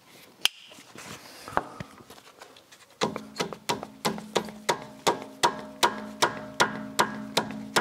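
A few faint clicks and one sharp tap from hands working on the rear half shaft, then about three seconds in background music starts: plucked strings over held low notes with a steady beat of a little over two notes a second.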